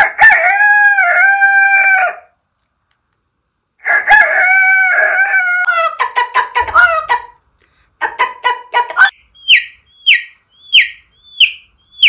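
A mimicry artist's voice imitating a rooster: two long crows, then choppy hen-like clucking, then five short calls that each drop in pitch, spaced evenly.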